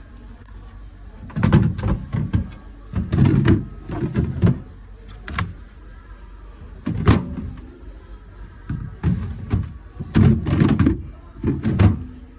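Doors and drawers of a four-door American-style fridge freezer being opened and shut: a series of thuds and clunks in several bursts.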